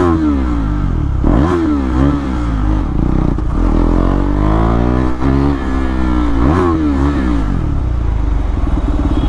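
KTM Duke 390's single-cylinder engine through an SC-Project CR-T slip-on exhaust, riding and revving, its pitch rising and falling several times as it accelerates, then holding steadier near the end.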